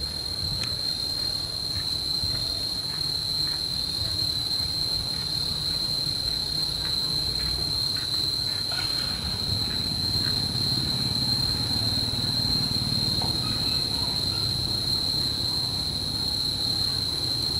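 Insects buzzing steadily at one high pitch, over a continuous low rumble.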